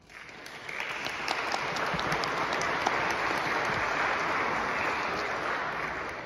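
Audience applauding: the clapping starts suddenly, builds within the first second and tapers off near the end.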